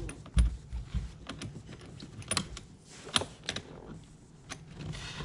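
Irregular sharp clicks and clinks of small hardware and hand tools being handled while a ground cable is fastened to a battery terminal.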